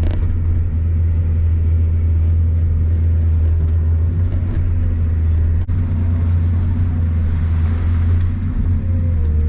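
Excavator's diesel engine running at a steady speed: a constant, loud low drone.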